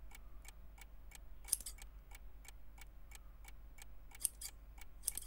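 Small scissors snipping through beard hair in quick, even strokes, about four a second, a few snips louder than the rest.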